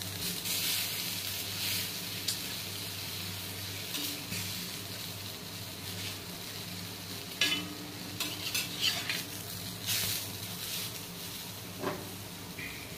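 A bread sandwich sizzles steadily in ghee on a tawa while a metal spatula presses and scrapes it against the pan. There are a few sharper scrapes and clinks past the middle and near the end.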